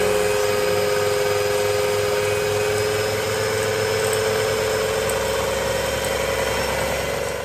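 Electric stand mixer running steadily, its dough hook kneading a thick flour-and-water dough in a stainless steel bowl: a steady motor whine over a low hum.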